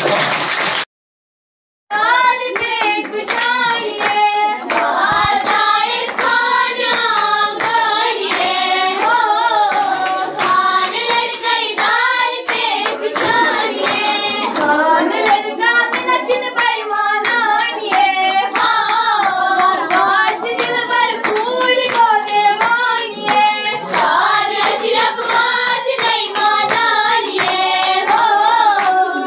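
A group of schoolgirls singing a song together while clapping their hands along with it. The sound cuts out for under a second near the start, then the singing and clapping run on without a break.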